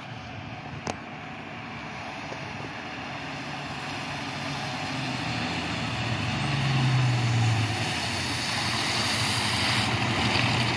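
Fire engine approaching at low speed, its diesel engine running steadily and growing louder as it nears. A sharp click about a second in.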